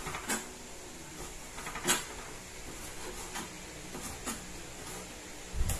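Chef's knife cutting tough air-dried beef into strips on a plastic cutting board: a handful of separate knocks as the blade comes down on the board, the loudest about two seconds in.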